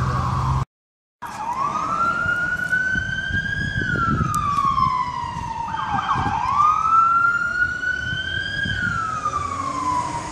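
Emergency vehicle siren in a slow wail, its pitch rising and falling twice, with a quick dip and recovery about six seconds in. The sound drops out for about half a second near the start, with road traffic rumbling underneath.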